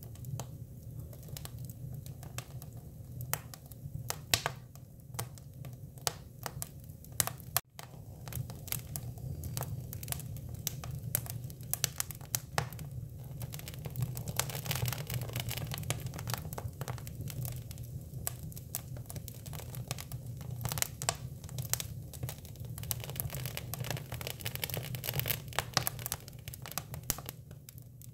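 Hinoki cypress wood burning in a fire, crackling with frequent sharp snaps and pops over a steady low hum. The sound drops out for an instant about eight seconds in.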